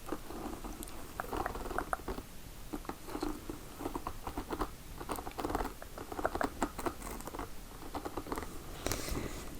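Close-up gum chewing: irregular wet clicks and smacks, several a second, with small pauses between bursts.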